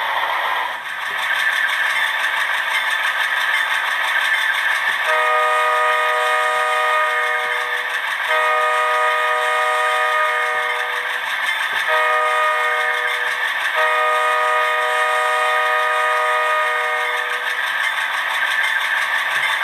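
Model diesel locomotive sound from a DCC sound decoder: a multi-chime horn blown long, long, short, long (the grade-crossing signal) over the steady running sound of the locomotive's engine.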